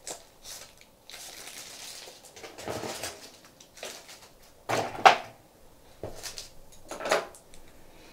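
Items and packaging from a makeup gift box being handled: a rustle for about a second, then several clacks and knocks of cases against each other, the loudest about five seconds in.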